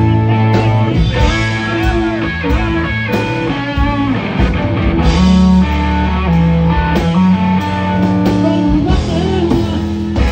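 Live blues band playing an instrumental passage: an electric guitar, a Telecaster Thinline-style semi-hollow, plays bending lead lines over bass and drums.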